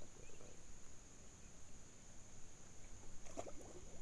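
A small bass hits the pond water with one short splash a little over three seconds in, as it goes back in beside the boat. A faint, steady high-pitched whine runs underneath.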